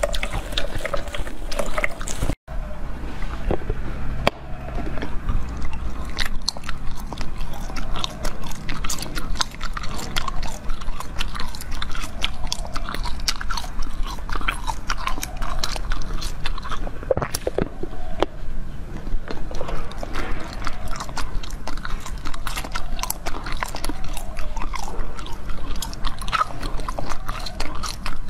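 A person biting into and chewing a large moulded red jelly, with dense, irregular small crackles and clicks. There is a brief break about two and a half seconds in.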